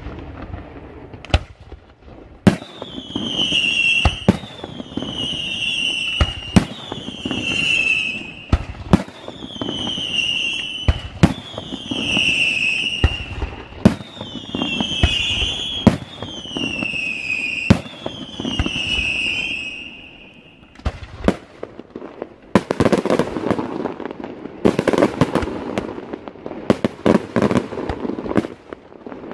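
Daytime fireworks: about eight sharp bangs come roughly every two seconds, each followed by a whistle that falls in pitch for over a second. After a short lull near two-thirds of the way in, a dense crackle of many rapid small bangs follows.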